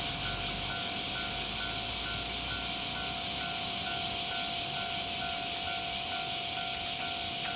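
Railway level-crossing warning bell ringing in an even, repeating pattern over a loud, steady hiss while a train is awaited.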